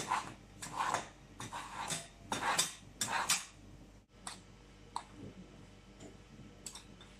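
Short brushing strokes, about two a second, as a tuft of hair is brushed flat against a steel-tined hair holding plate. About four seconds in they give way to quieter scraping and a few light clicks as glue is spread over the hair with a flexible scraper.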